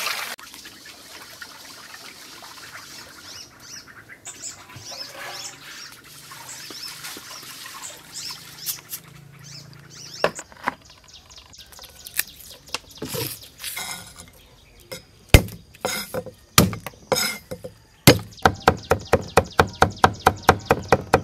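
Water pouring over rice in a metal strainer at the start, then faint bird chirps and scattered knocks. Near the end a cleaver chops rapidly on a wooden board, mincing garlic with about seven quick, even strikes a second.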